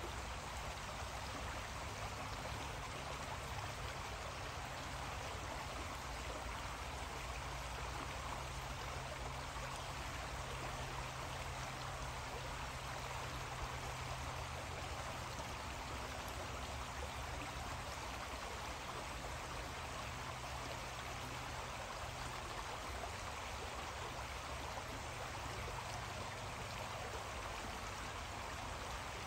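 Creek water running steadily, an even rushing wash with a low steady rumble beneath it.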